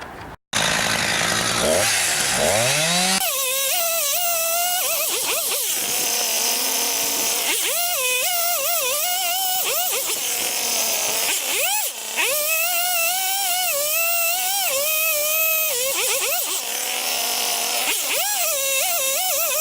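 Husqvarna 359 two-stroke chainsaw revving up, then running hard while cutting a tree, its engine pitch wavering and sagging briefly several times.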